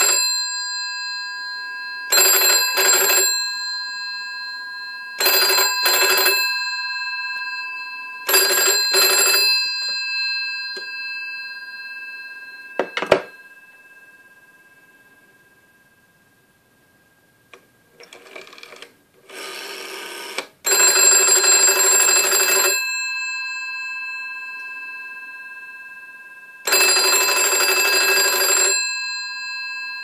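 The electromechanical bell of a 1970s GPO 746 rotary telephone, driven by a Raspberry Pi, ringing in pairs of short rings about every three seconds, each ring fading after it stops. About a third of the way in a single sharp clack breaks a quiet spell, and then the bell rings twice more in longer bursts of about two seconds.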